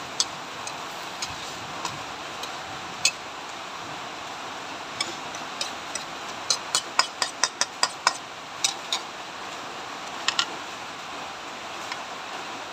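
Metal spatula knocking against a wok while stir-frying shredded cabbage and carrot, in scattered clicks with a quick run of about eight knocks around the middle. A steady hiss runs underneath.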